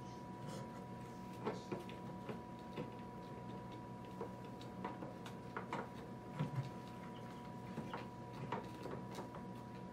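Irregular light clicks and taps as a circuit board is handled and pressed into place on a plastic incubator lid frame, over a faint steady tone.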